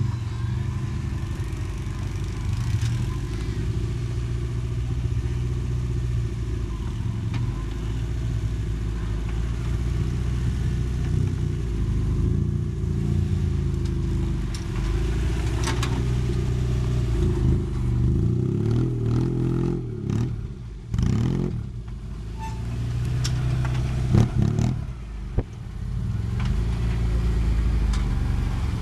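Engine of a modified Fiat 500 off-road crawler running at low revs as it crawls over rough ground. Its pitch rises and falls as the throttle is worked about two-thirds of the way through, and a couple of sharp knocks come near the end.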